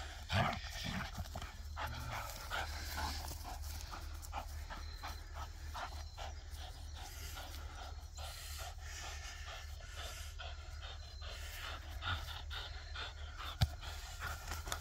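Vizsla panting in quick, repeated breaths while gripping and pulling on a tug toy.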